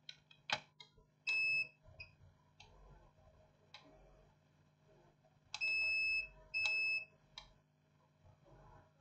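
A multimeter's continuity/diode beeper gives three short beeps, the second the longest, as its probes are touched to points on a laptop motherboard while the 19 V input line is checked for a short. Faint clicks of the probe tips come between the beeps.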